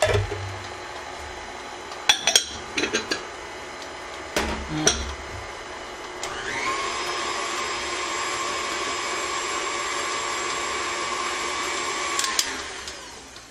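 KitchenAid Artisan stand mixer beating thick almond-flour cake batter in its metal bowl, with several sharp taps in the first five seconds as the dry ingredients are tapped in. About six seconds in, the motor is switched to a higher speed and its whine rises. It runs steadily, then winds down and stops near the end.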